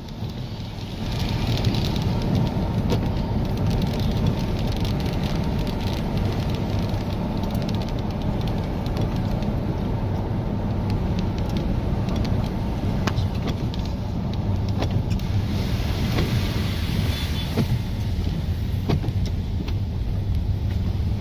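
Inside a moving car on a wet road: a steady low rumble of engine and tyres, picking up about a second in, with a few faint ticks.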